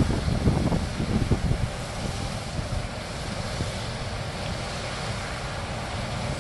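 Wind buffeting the microphone, gusty in the first second or so and then steadier, over the low, steady hum of a combine harvester and tractor working across the field.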